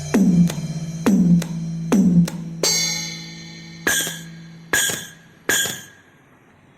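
Roland SPD-20X octapad playing electronic drum sounds through a speaker as its pads are struck one at a time: three tom-like hits whose pitch drops, then a cymbal-like crash and three bright hits, each dying away, with the last fading out about six seconds in.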